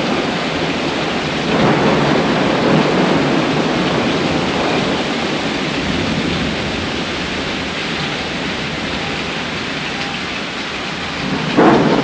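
Heavy rain pouring down steadily during a thunderstorm, with thunder rumbling. The sound swells about a second and a half in and gets suddenly louder just before the end.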